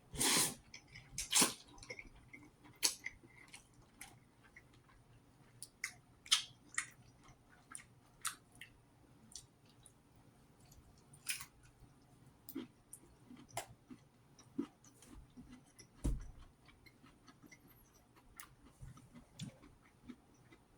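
Close-up chewing of ramen noodles, egg and broccoli: irregular wet mouth clicks and smacks with short quiet gaps, the loudest near the start.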